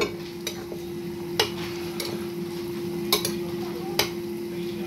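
Kitchen work noise: a steady hum at one pitch, with about half a dozen sharp clinks and knocks of dishes and utensils scattered through.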